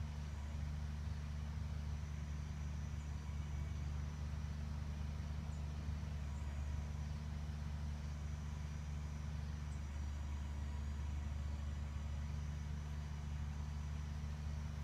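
Steady low rumble with a low hum, unchanging throughout, with a few faint high ticks now and then.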